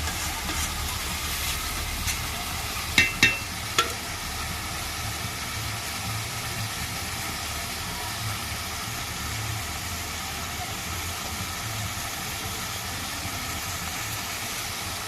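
Chicken curry sizzling steadily in a pot, a continuous frying hiss over a low rumble. About three seconds in come three sharp metal clinks, one with a brief ring.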